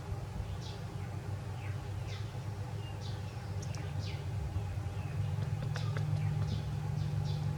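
Repeated short, high-pitched animal chirps, each falling in pitch, about one or two a second, over a steady low hum that swells about five seconds in.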